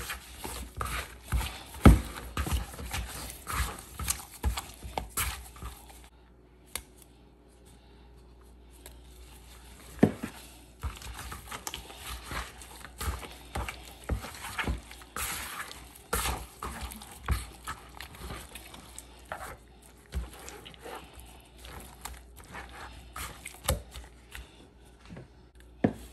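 Kitchen handling sounds while seasoning raw beef: irregular clicks, knocks and rustling of bottles, packaging and utensils, with a lull of a few seconds about a quarter of the way through.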